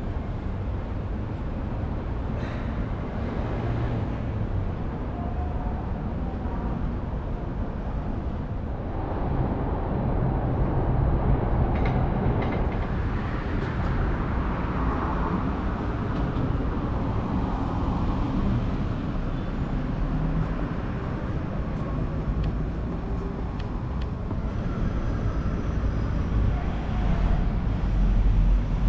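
Steady city street ambience: a continuous low rumble of passing vehicles, growing a little louder partway through.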